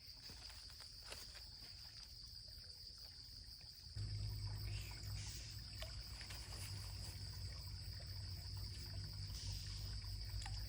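Insects trilling in one steady, high-pitched drone. About four seconds in, a low steady rumble joins it.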